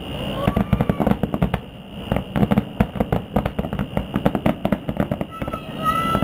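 Fireworks display: a rapid, unbroken string of bangs and crackles, several a second.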